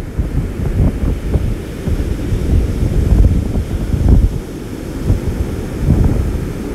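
Strong, gusty storm wind buffeting the microphone in loud, uneven rumbles, with breaking surf washing up the beach underneath.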